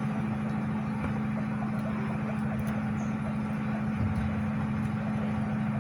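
Steady low mechanical hum at an even level, with a faint hiss over it.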